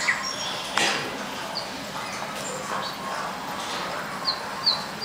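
Birdsong sound effects from the model exhibit's soundtrack: short falling chirps, several in quick succession near the end, with the clip-clop of horse hooves and a murmur of voices underneath.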